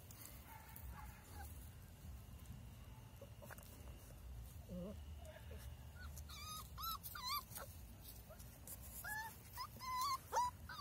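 Puppies whimpering and whining as they play: short runs of high, wavering cries about six seconds in and again near the end.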